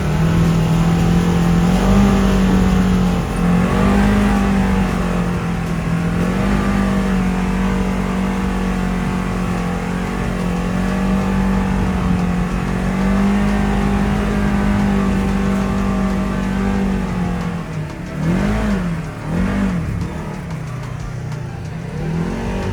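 ATV engine running steadily under throttle, its pitch stepping up and down with changes in speed. Near the end it revs up and drops back quickly a few times.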